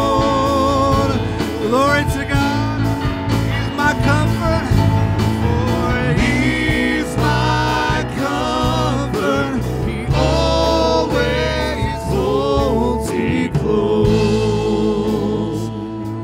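Live gospel praise band performing: voices singing a slow melody with vibrato over acoustic guitar, keyboard and conga drums.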